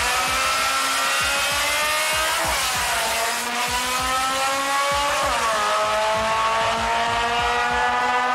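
Street-race car engine accelerating hard through the gears at full throttle: its pitch climbs steadily, drops at an upshift about two and a half seconds in and again about five seconds in, then climbs again.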